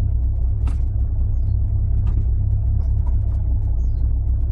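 Toyota AE86's 4A-G four-cylinder engine idling steadily, heard from inside the cabin, with a sharp click under a second in and a few lighter knocks.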